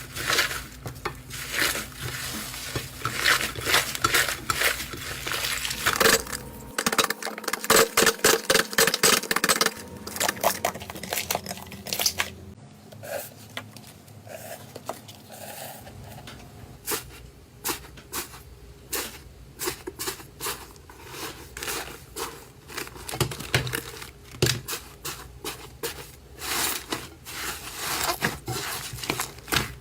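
Slime being squeezed and pressed by hand, giving a dense, irregular run of crisp clicks, crackles and pops. The texture changes a couple of times, about a quarter and halfway through.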